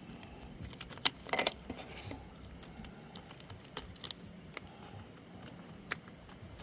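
Light plastic clicks and rattles as a part is worked into place on an RC truck's chassis, with a sharp click about a second in and a short cluster of clicks just after.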